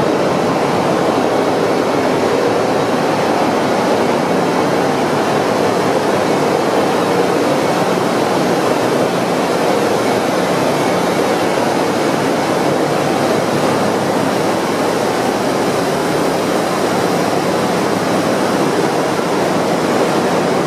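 Loud, steady din of a container ship's engine room: the running slow-speed two-stroke MAN B&W main diesel engine and auxiliary machinery, an even rushing noise with a faint steady hum under it.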